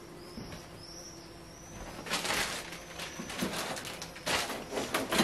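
Plastic wrapping crinkling and rustling in several bursts from about two seconds in, as a plastic-wrapped tool kit is handled and lifted out of a cardboard box. Before that, only faint repeated high chirps.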